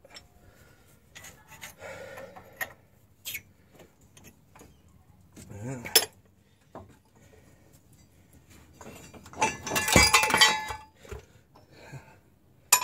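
Steel parts of a homemade bottle-jack ball joint press clinking and clanking against the control arm and tools. There is a single sharp crack about six seconds in and a loud burst of ringing metal clatter about ten seconds in.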